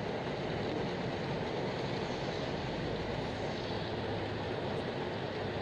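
Steady rumbling noise of a moving vehicle, even and unbroken.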